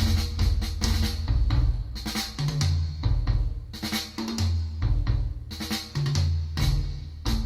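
Recorded music with a drum kit beating steadily over a moving bass line, played back through small wooden horn loudspeakers and picked up by a phone about two metres away.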